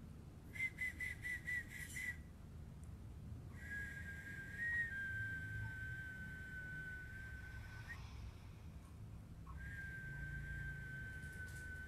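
A person whistling: a quick pulsing trill about half a second in, then two long held whistled notes, the first about four seconds long, each sagging slightly in pitch.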